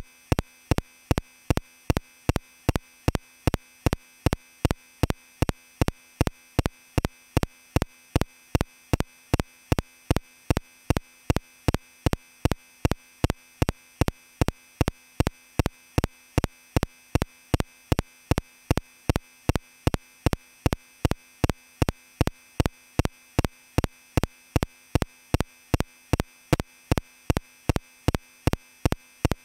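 Evenly spaced sharp clicks, about two and a half a second and all equally loud, over a faint steady tone.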